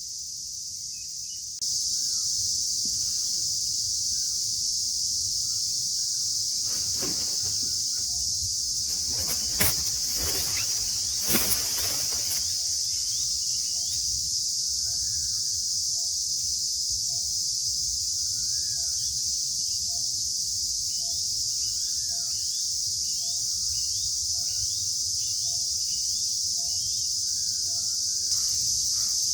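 Steady high-pitched drone of insects such as crickets or cicadas, starting about two seconds in, with faint short chirps repeating about every half second later on and a few brief knocks or rustles in the middle.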